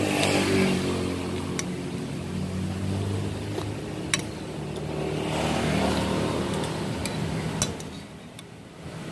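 A motor vehicle engine running close by, its hum swelling twice and easing off near the end, with a few sharp clinks of a metal spoon against a ceramic plate.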